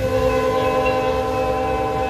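Commuter train's locomotive horn sounding a long, steady chord of several held notes, over the low rumble of the passing train.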